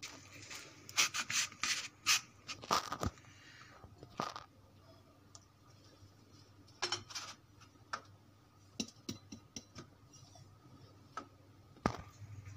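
A steel cup's rim pressed and twisted down through slices of bread to cut them into rounds. It gives clusters of short scraping and rubbing strokes against the bread and tray, with pauses between slices.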